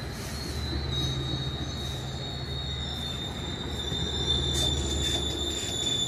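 Coaster bilevel commuter train rolling past the platform, its steel wheels giving a steady high-pitched squeal over a low, pulsing rumble.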